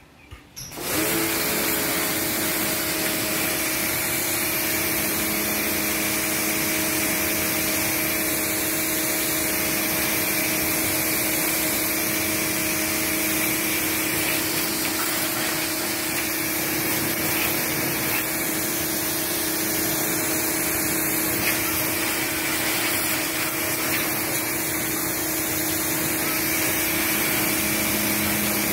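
Fujihama pressure washer starting up about a second in, its motor rising briefly to a steady hum. Over the hum comes the hiss of the high-pressure water jet spraying onto bicycle wheels and frames.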